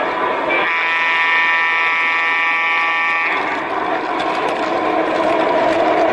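Model train's horn sounding one long, steady blast about half a second in. It then gives way to the steady running rumble of the train on the track.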